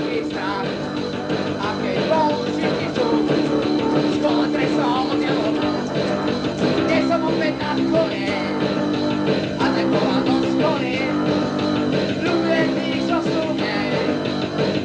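Punk rock band playing a song, recorded lo-fi on a dictaphone in a living room.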